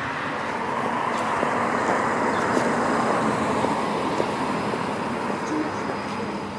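Road traffic: a car passing on the road, its tyre and engine noise swelling over the first few seconds and then slowly fading.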